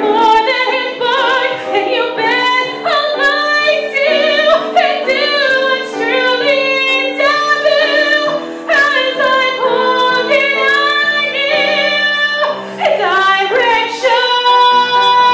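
Solo female voice singing a musical-theatre song with vibrato over an instrumental accompaniment, holding one long note near the end.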